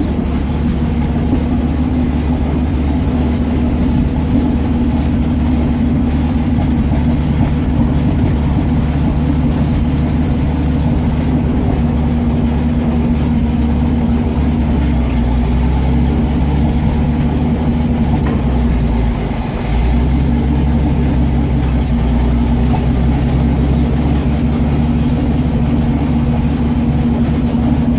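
The Jagdpanther tank destroyer's engine running steadily at idle, a deep even hum that dips briefly about two-thirds of the way through.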